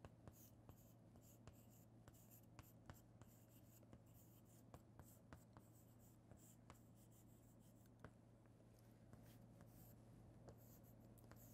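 Chalk on a chalkboard, faintly tapping and scratching as words are written, with irregular sharp clicks as each stroke lands. A low steady hum runs underneath.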